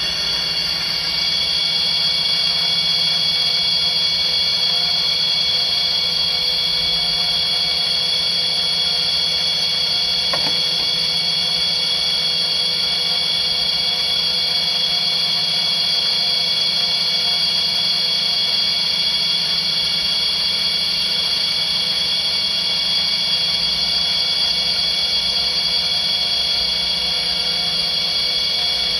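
Mikron A 60/0 hob sharpening machine running under power: a steady mechanical whine with several high-pitched tones over a low hum. One faint click about ten seconds in.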